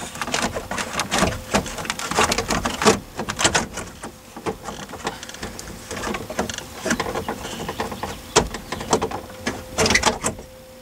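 Saturn SL2 plastic centre dash trim being handled and pressed back into place: a run of irregular clicks, knocks and rattles, busiest at the start and again near the end, over a faint steady tone.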